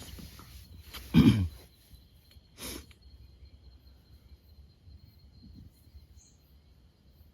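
Night insects, such as crickets, keep up a steady high trill. About a second in, a short loud low sound falls in pitch, and near three seconds a brief rustling noise follows.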